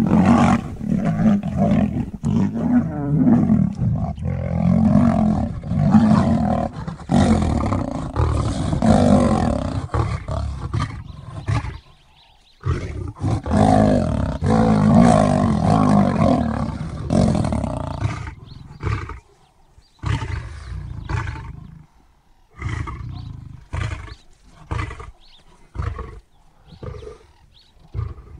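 Lions fighting, a male lion and a lioness snarling and growling loudly in long unbroken bouts for the first dozen seconds and again for about five more. Near the end this breaks up into short separate snarls and grunts.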